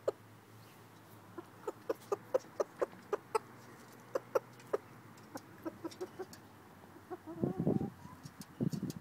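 A rooster clucking: a run of short, quiet clucks at about three a second, then a louder, longer call with a falling pitch near the end.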